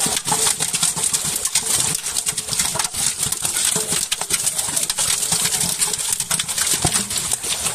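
Dense, continuous splashing and slapping of water from a mass of large fish thrashing together, crowded in a drawn-in fishing net.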